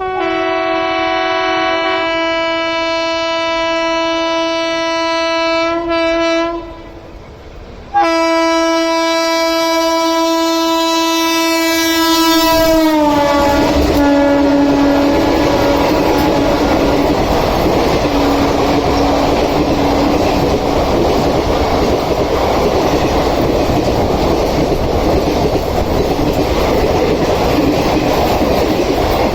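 Indian Railways WAG-7 electric locomotive sounding two long horn blasts with a short break between them, the second dropping in pitch as the engine passes. The express's coaches then rattle past at speed with steady wheel clatter on the rails.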